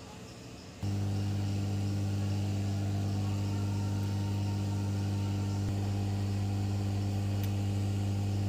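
Hot air rework station's blower switches on about a second in and runs with a steady hum while heating the ECU's CPU chip to desolder it from the board.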